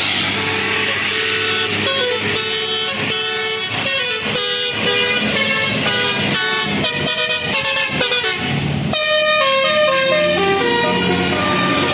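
Bus telolet horn, a Basuri multi-tone air horn, playing a melody: a string of short notes coming faster and faster, then longer held notes stepping in pitch near the end.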